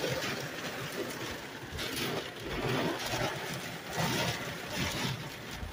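Heavy rain beating on a car's roof and windows, heard from inside the cabin, swelling and easing in gusts.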